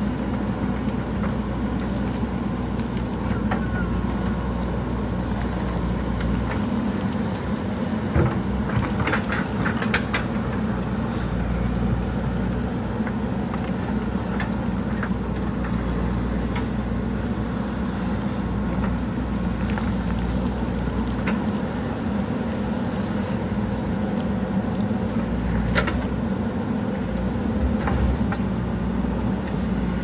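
JCB backhoe loader's diesel engine running steadily under hydraulic load while the backhoe arm digs and scrapes soil and rock. A few sharp knocks and clatters of the bucket against stones come about eight to ten seconds in and again late on.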